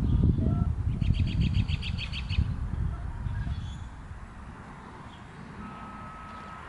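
A bird singing a fast trill of about nine repeated high notes, over a low rumble that fades away in the first four seconds.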